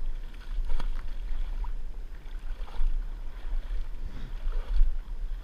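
Wind buffeting the microphone with a fluctuating low rumble. Faint distant voices come through now and then, and there is a single sharp knock about a second in.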